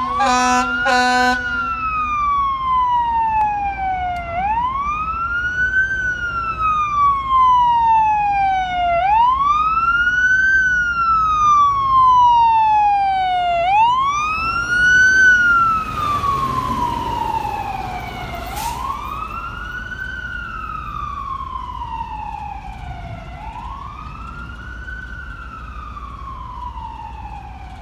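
Fire engine siren wailing, sweeping up and falling back about every four and a half seconds, with a horn blast sounding over it in the first second or so. It is loudest as the engine passes about 15 seconds in, with the truck's engine noise, then fades as it drives away.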